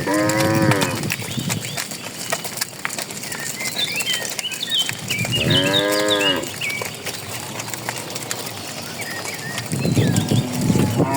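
Cattle mooing: three long moos, one at the start, one about halfway through and one beginning near the end, with birds chirping between them and scattered clicks from the walking herd.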